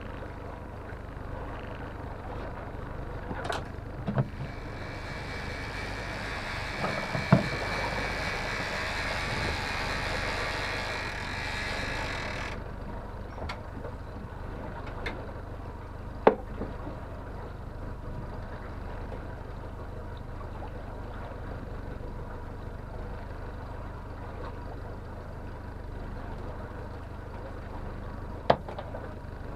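Honda four-stroke outboard motor running steadily at trolling speed, a low hum. A few sharp knocks come from the boat, and about five seconds in a hiss lasts several seconds before cutting off suddenly.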